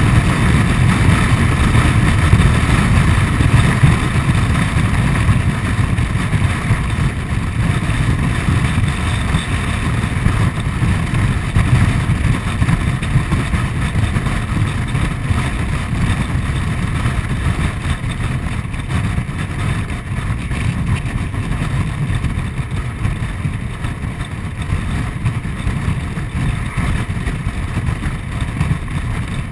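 Honda Forza 125 scooter under way at road speed: its single-cylinder engine running steadily beneath a rush of wind and road noise, a little quieter toward the end.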